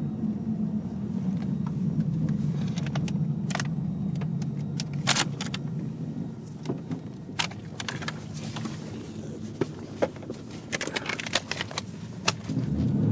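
Car engine idling with a low rumble that softens about halfway through, with many scattered sharp clicks and light rattles over it; near the end the engine starts to rise in pitch and level as it begins to accelerate.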